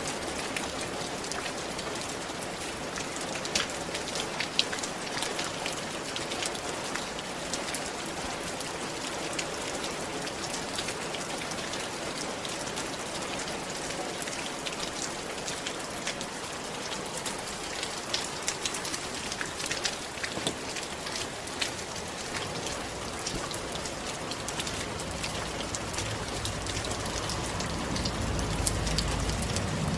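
Steady rain falling on a roof, with many separate drops ticking sharply through the even patter. A low rumble swells in over the last few seconds.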